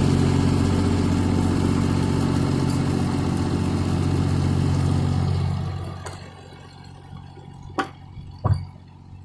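Steady, idling engine sound that dies away about five and a half seconds in, followed by a few sharp knocks.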